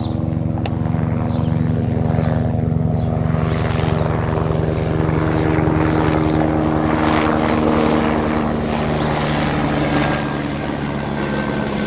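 Heavy vehicle's engine running steadily at close range, a low pitched drone with a rushing noise that swells through the middle and eases off about ten seconds in.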